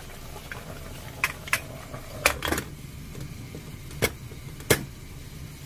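Kitchen utensils and dishes being handled: about half a dozen sharp clicks and knocks, spread out, over a low steady hum.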